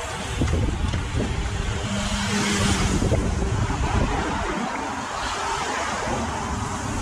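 Race support cars, among them a Škoda estate, driving past on a wet road. A tyre hiss swells about two to three seconds in, over a low rumble of wind on the microphone.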